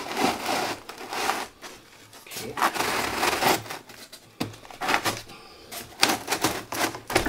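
Irregular clicks, knocks and rustles of hands handling parts of a model railway layout, working the road tunnel into place under the track boards.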